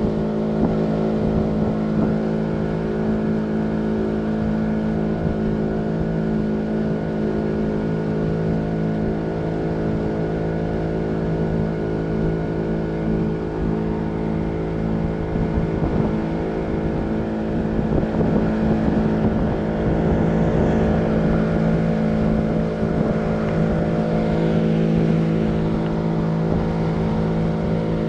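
Pontoon boat's outboard motor running at a steady speed, with a constant drone.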